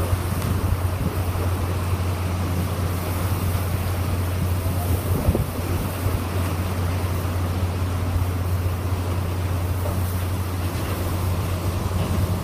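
Hurricane-force wind and driving rain, with the gusts buffeting the microphone into a steady, heavy low rumble under an even rushing hiss.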